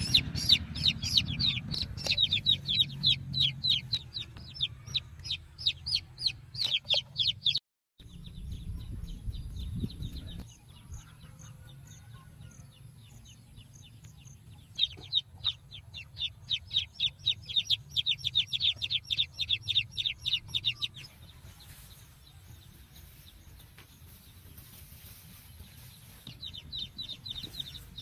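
A young chick peeping loudly and rapidly, about four high chirps a second, in long runs that stop and start again: one run at the start, another from about halfway, and a brief return near the end.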